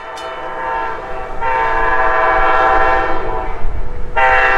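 Amtrak passenger train's locomotive air horn sounding long, steady multi-note blasts. It swells loud about a second and a half in, eases briefly, and blasts again near the end, over the train's low rumble that grows as it approaches.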